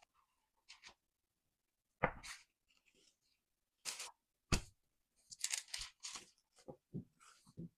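Plastic cling wrap crinkling and rustling as it is handled, with a few dull thumps of soft bread dough set down on a silicone baking mat, about two seconds in and twice more around the four-second mark.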